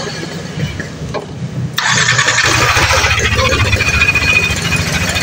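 Yamaha NMAX scooter's single-cylinder engine starts about two seconds in and then idles with a rough, growling 'ngorok' noise. The mechanic later traces this noise to a worn camshaft bearing.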